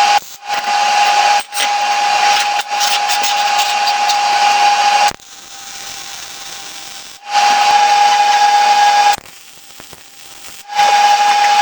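MIG welder laying short stitch welds on thin steel, a steady hissing crackle with a high buzzing tone. It comes in about five bursts of one to two and a half seconds each, each cutting in and out abruptly as the trigger is pulled and released.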